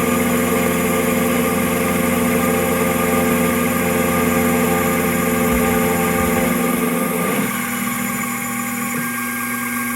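Spectralight 0200 benchtop CNC mill running a facing pass: a steady mechanical whir and hum from the spindle and axis drives. About seven and a half seconds in, part of the sound drops away and it gets a little quieter.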